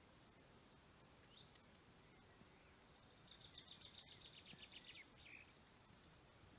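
Lesser spotted woodpecker calling: a faint, fast series of high, even notes, about ten a second for roughly two seconds around the middle, with a single short rising note before and after.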